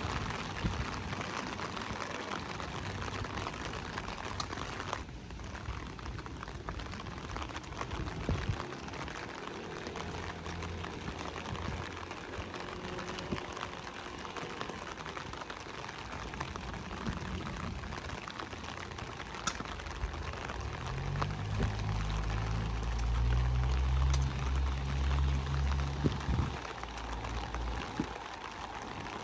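Light rain falling steadily, a dense even hiss of many small drops. A low rumble swells about twenty seconds in and fades a few seconds before the end.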